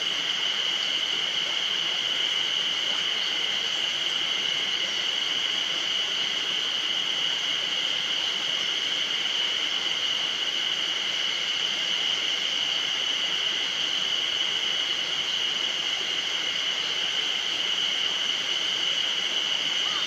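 A chorus of spring cicadas singing without a break, a steady high buzz that holds at one level throughout.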